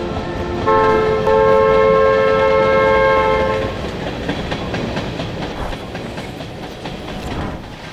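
Train horn sounding a steady chord for about three seconds over the rumble of a train running on the rails; the rumble then slowly fades.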